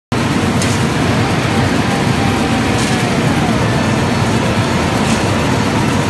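Copper-aluminum separator machine running steadily: an even, continuous mechanical noise as granules of shredded copper-aluminum radiator scrap stream off its deck into a plastic crate.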